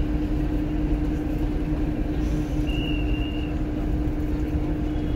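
Hino RM2 air-conditioned coach on the move: steady engine drone and road rumble with a constant hum. A faint, brief high tone sounds about three seconds in.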